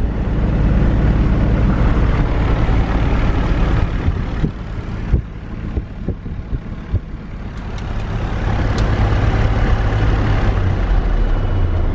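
A Cirrus SR20's 200-horsepower piston engine and propeller running at taxi power, heard inside the cabin as a loud, steady rumble with a hiss over it. It eases a little a few seconds in and builds again near the end.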